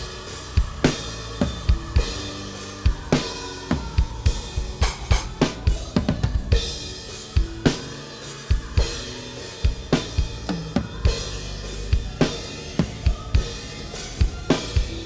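A mixed multitrack drum kit recording playing back: kick drum, snare, toms and cymbals in a continuous groove. The kick's low end is boosted for punch, and the snare has its lows cut and a lift around 4 kHz for snap. The kit is balanced by volume so the snare sits on top of the kick and toms.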